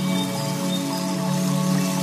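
Background music of soft, sustained held chords.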